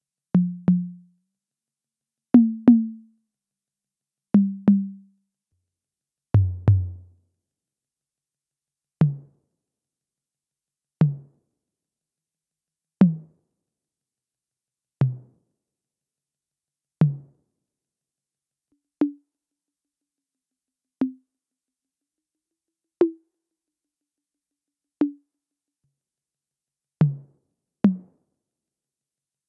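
Yocto TR-808 clone analog drum machine sounding single short tom-like drum hits, each with a click at the start and a quick decay, about one every two seconds. The tuning changes between groups: quick pairs at first, one deeper hit about six seconds in, then steady mid-pitched hits, then higher ones, and a pair again near the end.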